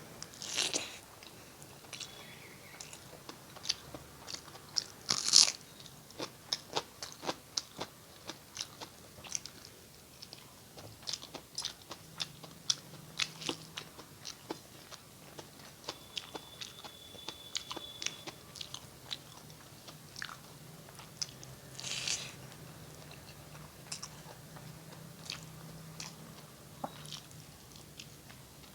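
A person eating close to the microphone: chewing with many short, wet mouth clicks and occasional crunchy bites, the loudest about five seconds in and again about three quarters of the way through.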